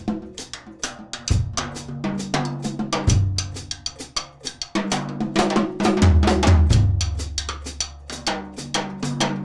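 Acoustic drum kit played with sticks: fast strokes around the snare and toms, with deep low drum hits ringing out several times, at about 1, 3 and 6 seconds in.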